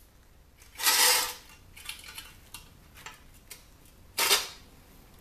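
Loose metal parts from a dismantled CD changer being handled and set down, with two louder clatters about a second in and about four seconds in and light clicks and taps between.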